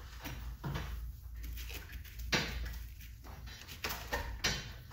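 A few short knocks and clunks with rustling between them, the sound of hands working the air-line tubing and its fittings, over a low steady hum.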